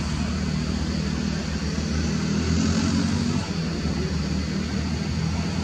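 Electric motor and propeller of a small XK Rare Bear F8F RC warbird buzzing steadily in flight, swelling louder about two to three seconds in as the plane passes closer.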